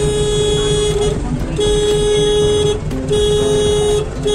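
A vehicle horn honking in four long blasts at one steady pitch, the last one shortest, over the low rumble of road traffic.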